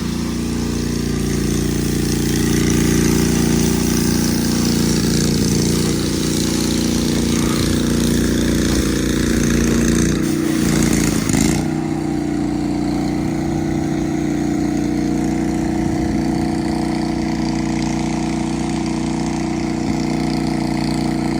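Small engine running at a steady speed, its pitch dipping briefly about ten seconds in. A hiss runs alongside it and cuts off suddenly about halfway through.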